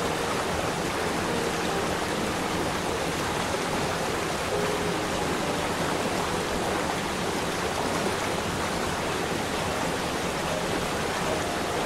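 Water rushing steadily down a cascading waterfall over rock ledges, an even full-bodied rush with no breaks.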